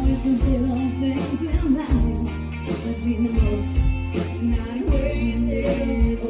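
A country band playing live through a PA, with drums keeping a steady beat under bass, guitars and fiddle.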